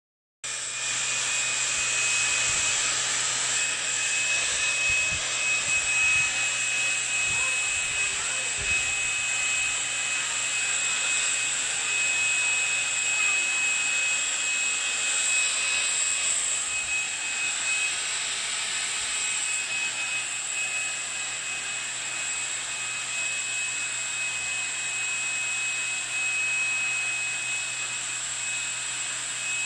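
LG A9 cordless stick vacuum running steadily with a high-pitched whine while its crevice nozzle sucks dirt off a tiled floor.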